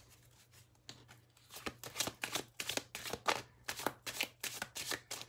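A deck of oracle cards being shuffled by hand, overhand style, with packets of cards slapping down onto the deck. It is quiet for about the first second, then quick card slaps come about three a second.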